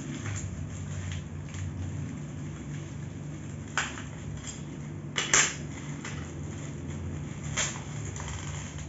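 Small metal office-chair assembly parts clicking and clinking as they are handled, three sharp clicks, the loudest about five seconds in, over a steady low hum.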